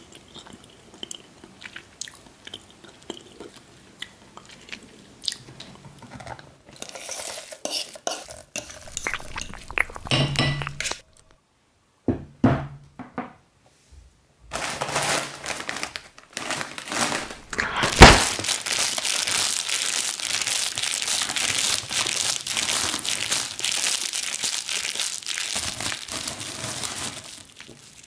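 A plastic snack bag of cheese puffs crinkling loudly and continuously for about thirteen seconds, with one sharp pop partway in. Before that, only quiet clicks and scrapes of a fork in a pot of mashed potato.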